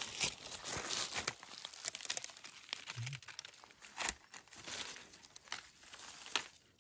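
Dry fallen leaves crackling and rustling as someone moves through leaf litter and pushes among low plants, with a few sharper snaps, the loudest about four seconds in.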